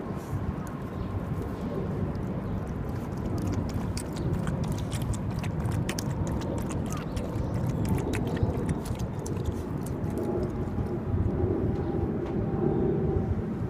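A dog's claws click rapidly on the walkway pavement as it trots, thickest through the middle, over a steady low rumble of city traffic.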